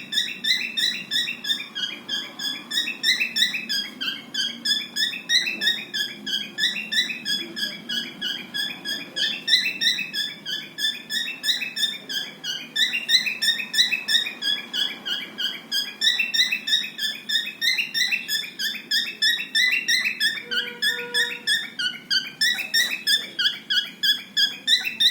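Pet cockatiels chirping continuously: a quick, unbroken string of short high chirps, several a second, swinging up and down in pitch every couple of seconds.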